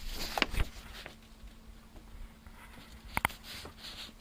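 A few faint clicks and knocks, with two sharp clicks close together about three seconds in, over a low steady hum.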